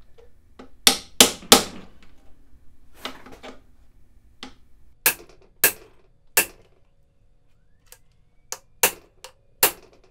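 Hammer taps on a bearing race driver, metal on metal, driving a new steering stem bearing race into the bottom of a dirt bike's steering head tube. About a dozen sharp taps come in three bunches: three about a second in, a handful in the middle and four near the end.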